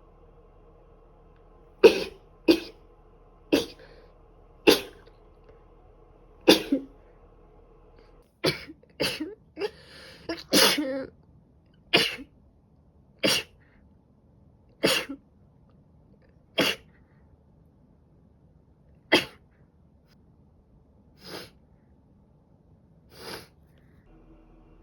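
A woman with a cold sneezing again and again: a long run of about seventeen short, sharp sneezes, bunched closest together near the middle, with the last two fainter.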